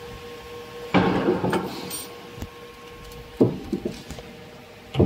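Metal parts of a filling machine being handled during disassembly: a scraping clatter about a second in, then a few sharp knocks around the middle, over a steady faint hum.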